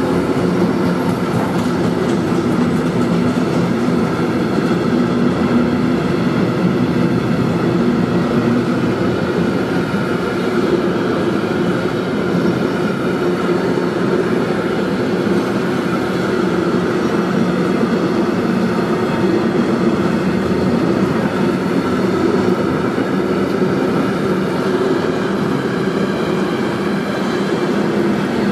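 Long intermodal freight train of pocket wagons carrying lorry trailers rolling steadily past on the station track. The wheels on the rails make an even, unbroken noise with a few steady tones running through it.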